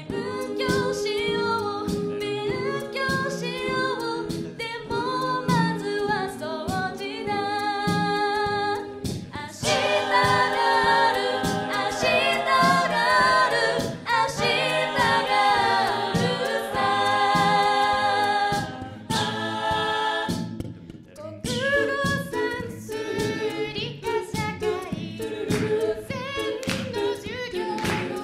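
Mixed-voice a cappella group singing a Japanese pop song live into microphones, with a steady beat. The singing grows fuller and louder about ten seconds in and drops back briefly about twenty seconds in.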